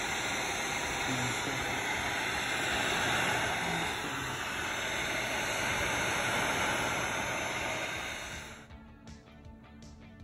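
Heat gun blowing steadily over freshly poured epoxy resin to pop surface bubbles, then switched off sharply near the end.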